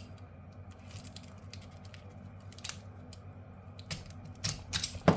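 Scattered small clicks and crunches of a transformer's winding wrapping being cut and pulled open to get at the copper windings, with a few sharper clicks near the end.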